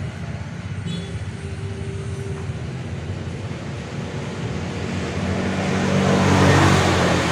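A motor vehicle's engine running, getting louder over the last two seconds or so.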